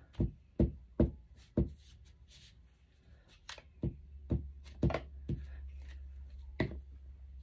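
An ink pad dabbed repeatedly onto a stamp while inking it up: about ten light taps in uneven runs, a quick group of four, then five more after a pause, and a last one near the end.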